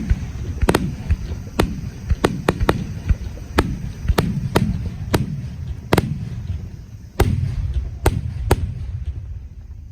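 Aerial firework shells bursting in quick succession: about a dozen sharp bangs over a low, rolling rumble of echoing booms, which dies away near the end.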